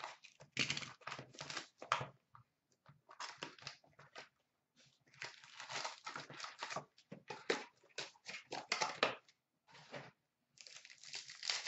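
A trading-card box and its wrapped packs being torn open and handled: irregular crinkling and tearing of wrapper and cardboard in short spurts with brief pauses.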